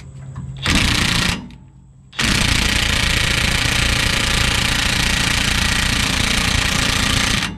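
DeWalt XR cordless impact wrench hammering on a rusted shock mounting nut: a short burst about a second in, then a long run of about five seconds.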